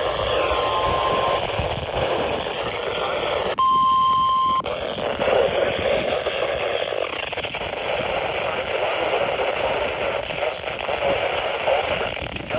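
NOAA Weather Radio 1050 Hz warning alarm tone heard through heavy radio static, the weekly test that sets off alert receivers. A faint steady tone buried in hiss fades out about a second and a half in. About three and a half seconds in, a louder, clean tone sounds for about one second. The rest is static.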